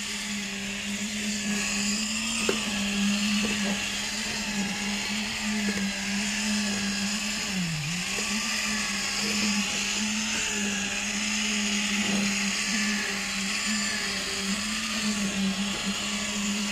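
Electric concrete poker vibrator running with a steady high hum while it consolidates freshly poured concrete; its pitch dips briefly about halfway through.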